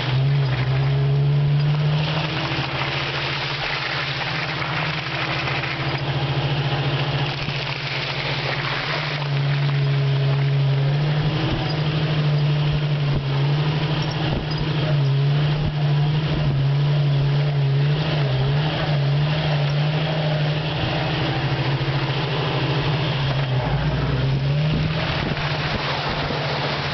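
A 1989 Jeep Wrangler YJ's engine running under throttle as the Jeep drives a muddy trail, its note wavering with the throttle over a steady rushing noise. Near the end the Jeep drives into a mud puddle and mud splashes up around the front tyre.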